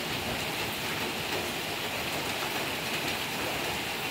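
Steady rain, an even hiss with faint scattered ticks.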